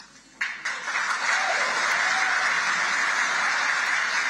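Large audience applauding: dense, steady clapping that breaks out suddenly about half a second in, after a short silence.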